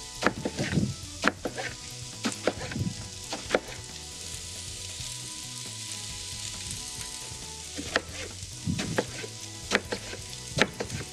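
Chef's knife slicing an eggplant into half-rounds on a plastic cutting board, each cut ending in a sharp tap on the board, in two runs with a pause of several seconds in the middle. Vegetables sizzle steadily in a frying pan underneath.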